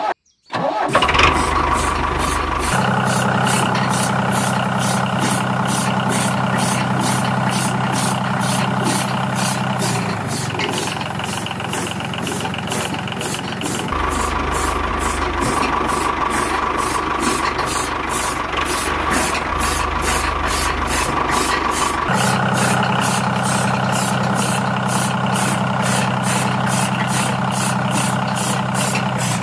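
Small engine of a miniature walking tractor starts about half a second in and runs steadily with a regular knocking beat, like a small single-cylinder diesel, while it drives a belt-powered mini chaff cutter. The tone changes abruptly a few times.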